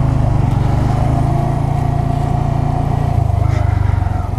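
2017 Honda Grom's single-cylinder four-stroke engine running steadily as the motorcycle rolls at low speed.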